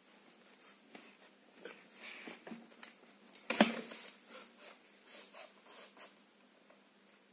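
Drawing by hand on paper: a run of short strokes and rustles, with one much louder knock about three and a half seconds in.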